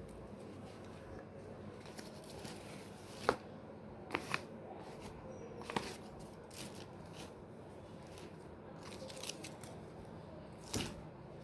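A delivery package being handled and opened by hand: low rustling with a few sharp snaps and clicks, the loudest about three seconds in and another near the end.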